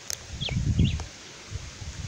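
Wind buffeting the microphone in a gust about half a second in, with a bird giving two short chirps over it.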